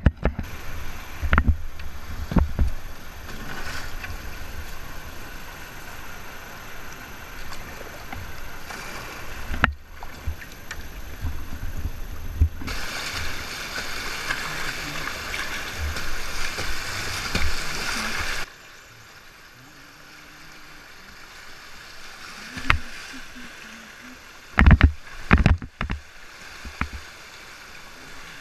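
Whitewater river rushing around a kayak, with paddle strokes and splashing. The sound jumps abruptly at several edits, and a few loud sharp knocks come near the end.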